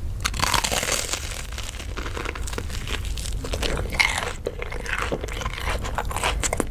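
Close-miked ASMR eating: crunchy bites into a battered corn dog and chewing, with crisp crackling throughout.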